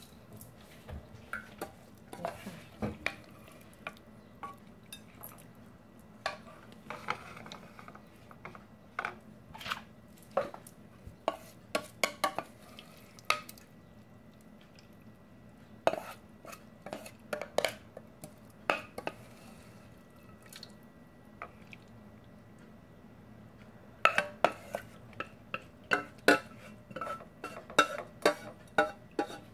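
Wooden spoon knocking and scraping against a metal bowl while spooning minced chicken larb out onto a platter: irregular taps and clinks, coming thicker and faster near the end.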